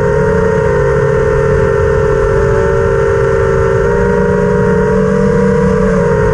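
Brushless motors of an FPV quadcopter (Emax Eco 2207 1900kv on a 4S lipo, Ethix S4 props) running at near-constant throttle: a loud, steady-pitched whine over a low rumble, picked up by the GoPro mounted on the frame.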